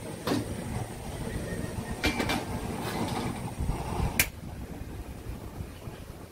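Gas wok burner running with a steady low rumble. A few sharp knocks come through it: one just after the start, a cluster about two seconds in and a louder single one about four seconds in, after which the rumble is quieter.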